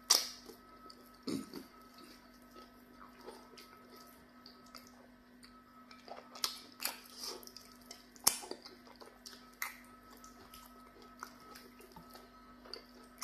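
Close-up eating sounds of a man eating fish and soup with his fingers: scattered wet smacks, chewing and small squelches, the loudest right at the start and twice more around the middle, over a faint steady hum.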